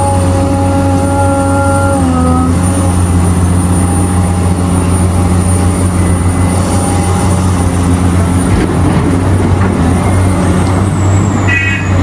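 Large diesel mining machinery running steadily: a deep, continuous engine drone of excavators and haul trucks at work, its pitch stepping down slightly about two seconds in.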